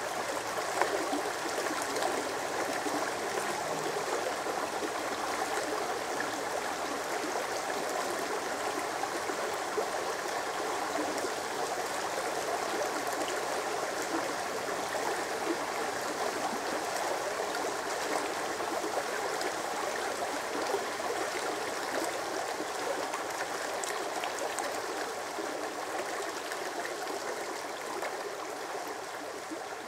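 Shallow stream rushing and babbling over stones in small riffles: a steady wash of water that grows a little quieter near the end.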